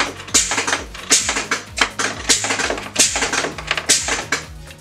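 Sharp clacks, about one every second or less, from a hand-operated underpinner driving V-nail wedges into the corner of a wooden picture frame. Under them runs background music with a steady beat.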